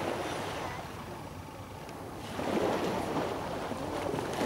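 Small waves washing onto a sandy beach, a louder wash swelling up a little over two seconds in.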